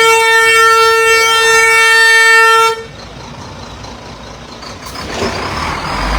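Truck horn sounding one long, steady blast that cuts off sharply about three seconds in, followed by quieter engine noise that grows louder near the end.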